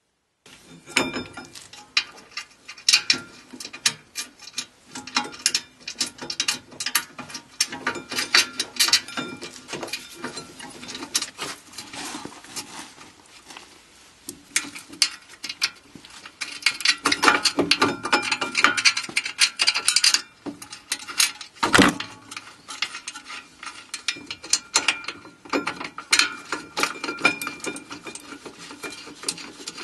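Ratchet wrench clicking in quick runs as the rear brake caliper carrier bolts are run in, mixed with clinks of the metal brake parts being handled and one louder knock a little past the middle.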